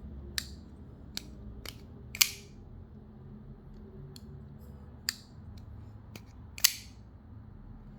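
Koenig Arius folding knife flipped open on its bearings and closed again: a series of sharp metallic clicks and snaps as the blade locks open and shuts, the two loudest about two seconds in and near the end.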